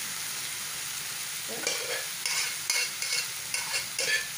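Freshly added shredded cabbage sizzling in a stainless steel frying pan. From about a second and a half in, a stirring utensil scrapes and knocks against the pan, a few strokes a second, over the sizzle.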